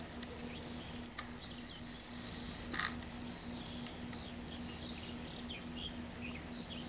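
Outdoor ambience: small birds chirping intermittently in the background over a faint steady low hum, with a single brief click a little under three seconds in.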